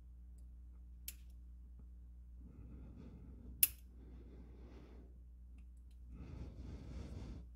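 Two sharp clicks of ceramic-tipped tweezers against a small metal RDA top cap while prying at its airflow insert, the second louder, with soft hissing breaths between and near the end.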